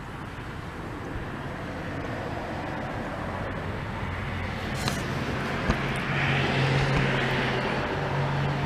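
An engine's steady low hum, growing louder through the second half, with a small click near the end.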